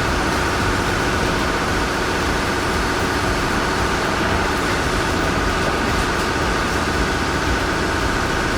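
Heavy vehicle engines running steadily at a constant level.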